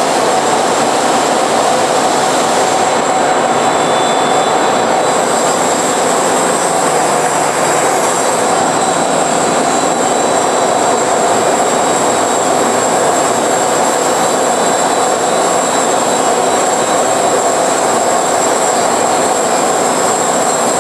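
Industrial bandsaw with a 5-horsepower blade motor cutting dry through a forged aluminum part, trimming off the forging flash: a loud, steady running noise of the blade in the cut, with a high steady tone held throughout.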